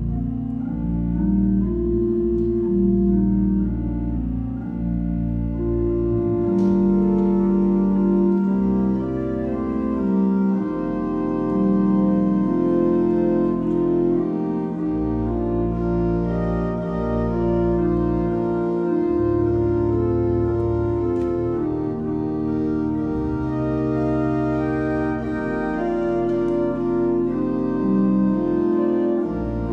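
Eisenbarth pipe organ playing held chords that change every second or so, with deep pedal bass notes dropping in and out.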